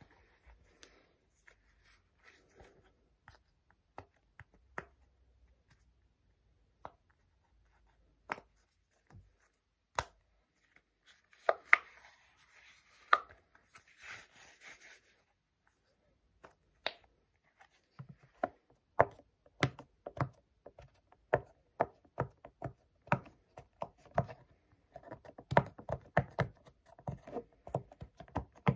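Fingertips tapping on a round red household item as ASMR triggers. The taps are sparse at first, then give way to a few seconds of scratching and rubbing near the middle, then to a fast run of several taps a second in the second half.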